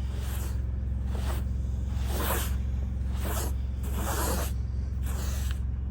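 Snow being swept off a car with a brush, about six swishing strokes roughly one a second, over a steady low hum.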